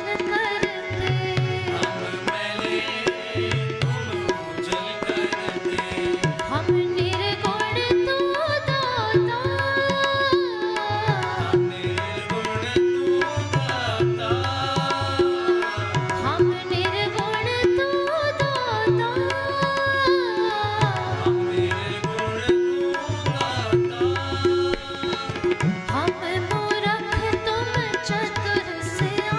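Sikh devotional shabad kirtan: tabla keeps a steady beat while a melody glides up and down over a held drone.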